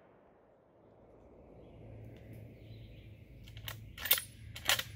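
Several short, sharp metallic clicks and clinks between about three and a half and five seconds in, from a Mossberg Patriot bolt-action rifle being handled, over a faint low hum.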